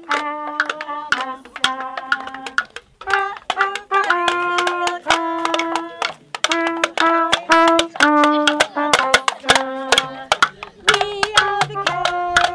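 Trumpet playing a simple melody of held notes, with cardboard boxes beaten with sticks as percussion, giving sharp taps throughout. A lower note sounds under the melody near the end.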